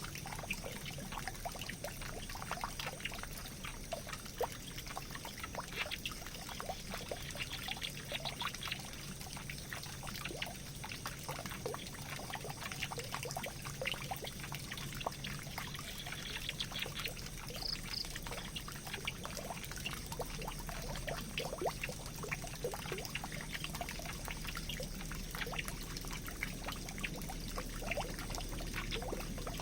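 Water pouring and trickling, with many small irregular drips and splashes over a steady wash. A few short, high peeps sound briefly about eighteen seconds in.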